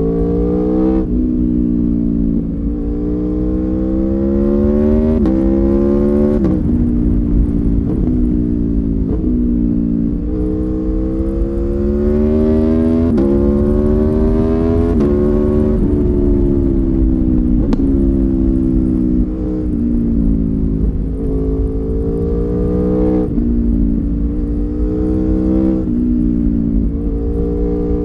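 Aprilia Tuono V4 1100 Factory's V4 engine pulling hard through the gears: the revs climb and then drop sharply many times as it shifts, with a stretch of falling revs in the middle as it slows before pulling again.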